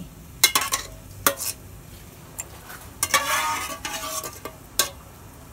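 A ladle stirring curry in an aluminium pot, knocking sharply against the pot several times, with a longer swishing scrape through the liquid about three seconds in.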